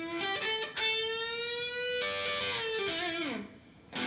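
Electric guitar played solo: a note slid up into a long held, ringing line, which glides down and stops a little over three seconds in; a fresh chord is struck near the end.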